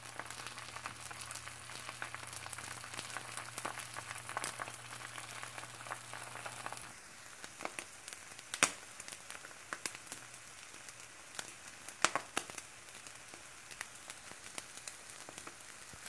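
Whisked egg frying in a nonstick pan on an electric stovetop: a steady light sizzle with scattered crackling pops. A low hum stops about a third of the way through.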